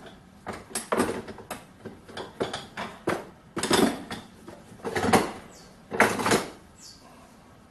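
Small steel parts and hand tools clinking, scraping and knocking against one another and the metal of the lathe headstock, in about seven separate clattering bursts.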